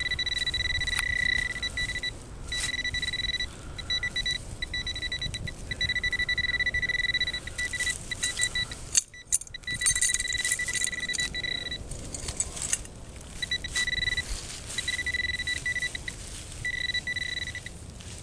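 Handheld metal-detecting pinpointer giving a steady high tone that switches on and off in stretches of one to two seconds as it is moved through the dug soil, signalling metal close by. Over it come scraping and rustling of gloves and tools in soil and dry leaves, loudest about nine to ten seconds in.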